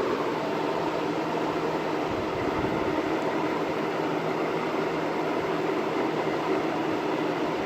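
20-inch Kmart K223 box fan running on high: a steady rush of moving air over a low motor hum.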